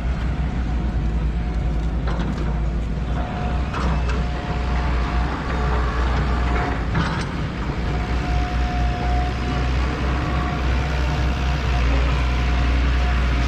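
Backhoes at work: a steady low diesel rumble with a thin whine that comes and goes, and a few sharp clanks about two, four and seven seconds in.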